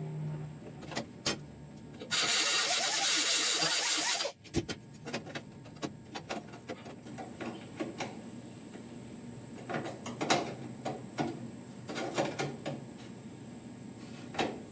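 Sheet-steel vent pod being pushed and shifted in its opening in a steel truck dash during a test fit, making irregular metal clicks, taps and scrapes. A loud, steady hiss starts about two seconds in and cuts off suddenly about two seconds later.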